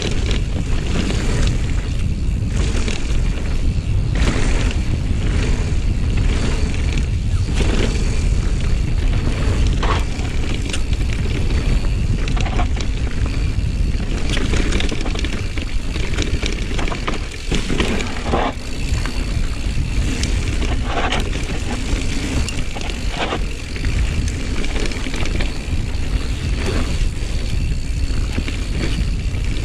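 Full-suspension mountain bike, a Rocky Mountain Slayer, riding down a dirt trail: a constant low rumble of wind and rolling tyres, with frequent knocks and rattles from the bike over roots and bumps.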